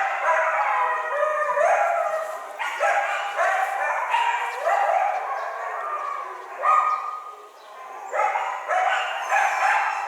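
A pack of coyotes yipping and howling together, many overlapping high, sliding calls.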